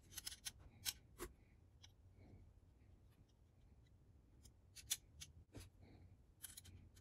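Light sharp clicks and taps of a hex key against small screws and 3D-printed plastic parts as a model is screwed together and handled. A cluster of clicks comes in the first second or so, another around five seconds in, and a few more near the end.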